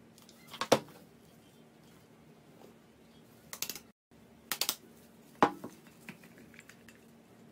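A few sharp clinks and knocks of a plastic spoon and glass Pyrex measuring jugs being handled over a faint steady hum, with powder tipped into a bowl of grated soap base; the sound drops out for a moment about four seconds in.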